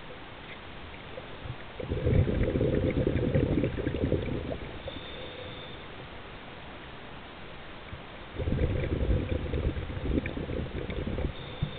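A scuba diver's exhaled breath bubbling out of the regulator, heard underwater: two long gurgling bursts of bubbles, each about three seconds long, with a quieter pause between them.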